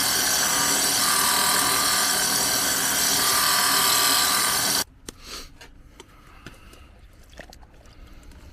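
Drill press spinning a 50-grit diamond polishing pad against a piece of amazonite: a steady grinding whir with a rasping scrape from the stone. It stops abruptly about five seconds in, leaving only a few faint clicks of handling.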